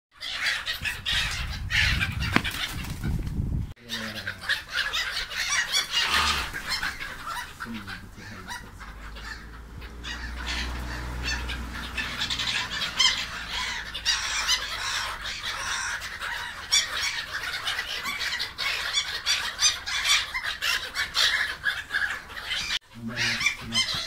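A flock of black-headed gulls calling, many short harsh calls overlapping continuously while they squabble over food. A low rumble sits under the calls for the first few seconds.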